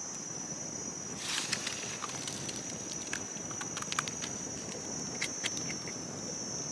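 Dry leaf litter rustling and crackling, then a string of small clicks and snaps, starting about a second in, as a red brittlegill mushroom is pulled up and its stem base cleaned by hand. A steady high-pitched insect drone runs throughout.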